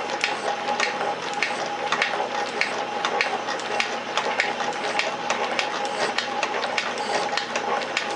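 Metal shaper running, its ram stroking steadily across a cylinder casting's port face on the finest feed for a finishing pass. A steady whine from the drive, with a sharp click a little under twice a second, in time with the strokes.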